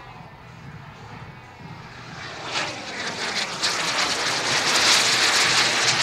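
Turbine engine of a large radio-controlled scale Red Arrows Hawk jet: a high jet rush and whine that grows much louder from about two seconds in as the model flies closer, loudest near the end.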